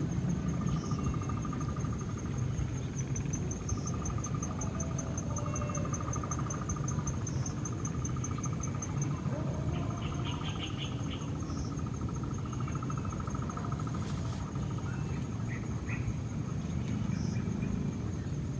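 Crickets and other insects trilling without a break: a high, fast-pulsed trill and a lower pulsed trill, over a steady low rumbling noise. A brief burst of quick chirps comes about ten seconds in.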